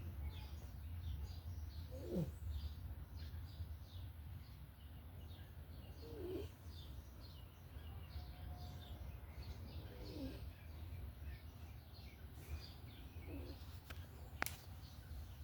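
A sleeper snoring, four snores about four seconds apart, over a steady low hum with birds chirping in the background. One sharp click near the end.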